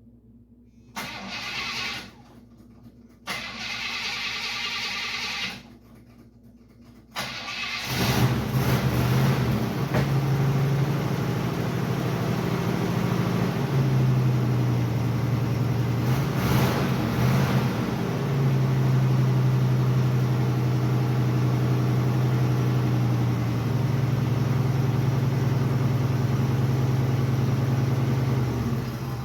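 Vehicle engine cranked in two short goes, then catching about seven seconds in and running steadily, its speed rising and falling a few times.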